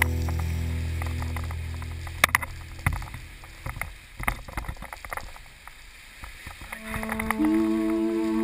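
Background music: a low held chord fades out over the first few seconds, then comes a quiet gap of scattered faint clicks, and the next song's opening notes come in about seven seconds in.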